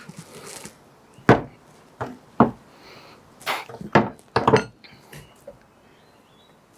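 Motorcycle fork parts being handled on a workbench: a short rub, then a string of about seven sharp metal knocks and clinks as parts are tapped and set down.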